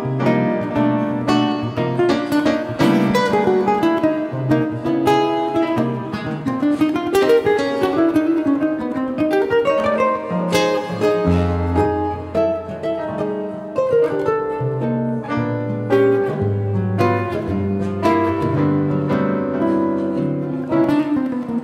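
Live instrumental music: a nylon-string classical guitar playing quick plucked melodic runs over an electronic keyboard, with a low bass line coming in about halfway through.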